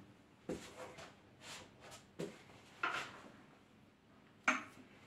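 About five sharp clicks and knocks from handling a stopped wood lathe's headstock and the large wooden bowl mounted on it, spaced irregularly, the loudest near the end.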